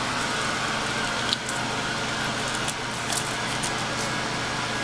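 A steel tape measure blade being pulled out, giving a few short clicks and rattles over a steady room hum, like an air conditioner or fan.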